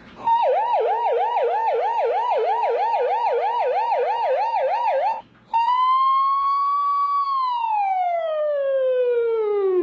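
A man imitating a police siren with his mouth. First comes a fast yelp of about three rising-and-falling sweeps a second. After a short break comes a long wail that holds and then slowly falls in pitch.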